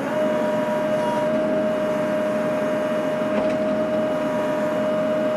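John Deere 50D compact excavator running, with one steady whine held at a constant pitch over the engine noise.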